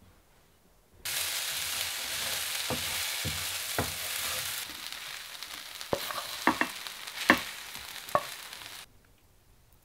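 Food sizzling in a hot frying pan, starting suddenly about a second in and cutting off near the end. A wooden spoon stirs and scrapes against the pan, giving a series of sharp knocks; the loudest come in the second half, as the food is scraped out of the pan.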